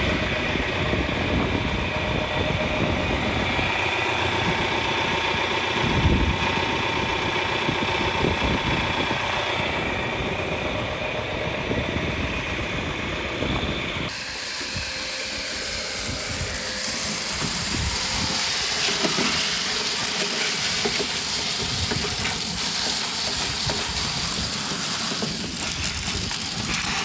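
Farm tractor engine running steadily. About halfway through the sound cuts abruptly to a louder, hissing rush over a lower engine sound.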